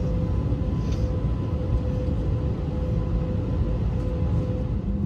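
Steady low rumble heard inside the cabin of an Airbus A320 on the ground: its CFM56 engines at idle and the cabin air, with a faint steady hum running through it.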